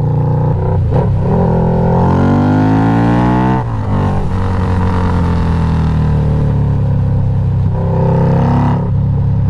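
Harley-Davidson V-Rod's V-twin engine through Ground Pounder drag-pipe exhaust, opened up under hard acceleration. The pitch climbs for about two seconds, drops sharply at an upshift a few seconds in, then holds fairly steady while cruising.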